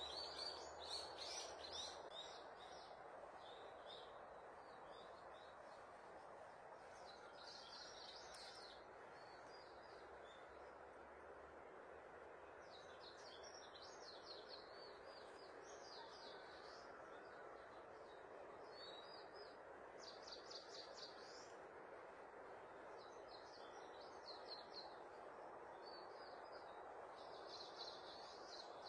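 A bird singing short, high trilled phrases, repeated about every five to six seconds. Underneath is a faint, steady rushing background noise.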